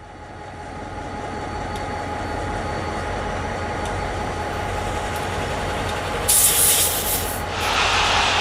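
Steady mechanical rumble with a faint steady whine, swelling up over the first second or two. About six seconds in comes a loud burst of hiss lasting about a second, after which the noise grows louder and fuller.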